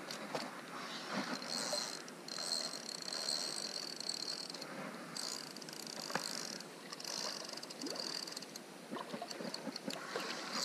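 Penn Spinfisher spinning reel being cranked in spurts, a light high whirring with a fine clicking texture that starts and stops every second or few as line is gained on a heavy fish.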